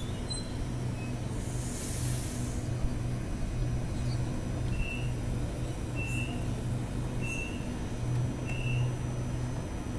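Sydney Trains Waratah double-deck electric train at the platform, humming steadily. A short hiss of air comes about two seconds in as it stops, then four short high beeps about a second and a quarter apart as its doors open.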